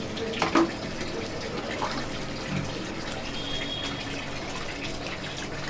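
Steady rushing noise of running water, with a few light knocks.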